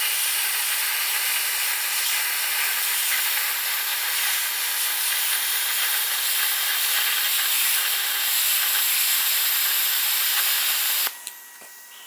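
Plasma cutter torch cutting through three stacked plates: a steady loud hiss of the arc and air jet, with a faint steady whine in it. It cuts off suddenly about a second before the end.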